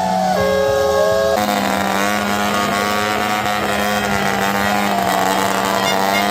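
Motocross bike engines running at high revs, the pitch jumping abruptly twice in the first second and a half and then holding steady.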